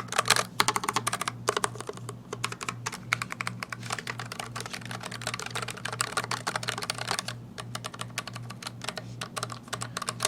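Typing on a NuPhy Air60 mechanical keyboard with Gateron Brown tactile switches: fast, dense runs of keystroke clicks with a brief pause a little past the middle.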